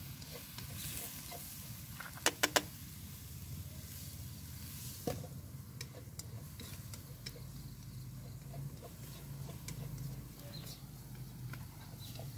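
Food sizzling in a pan over a charcoal fire as it is stirred with chopsticks, with scattered small clicks. Three sharp clicks come in quick succession about two seconds in.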